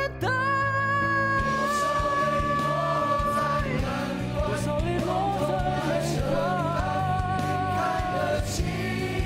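Mandarin pop song with band backing: a singer holds one long note for about three and a half seconds, then the singing moves on in a shifting melody over a steady drum beat.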